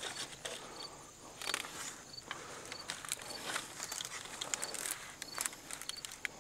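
Irregular footsteps and rustling crunches in dry field vegetation, with a faint, high, short chirp repeating about once a second.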